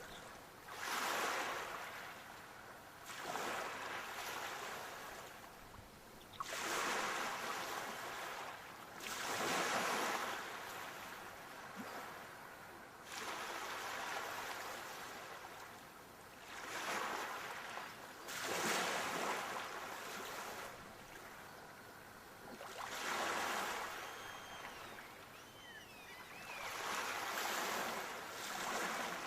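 Sea waves breaking, a surge of surf about every three seconds, each swelling and then dying away.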